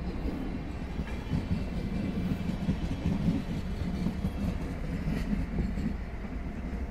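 Two-car diesel multiple unit passing close by: its engine runs under the steady rolling of the wheels, with occasional clicks as the wheels cross rail joints.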